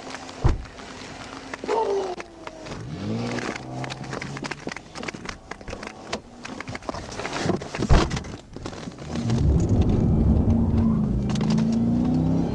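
Police patrol car's engine revving as the car accelerates hard, its pitch climbing in rising sweeps, then running loud and steady from about nine seconds in. There is a sharp knock about half a second in and another near eight seconds.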